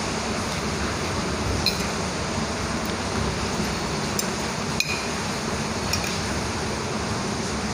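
A fork clinking against a plate a few times while eating, over a steady hiss of heavy rain.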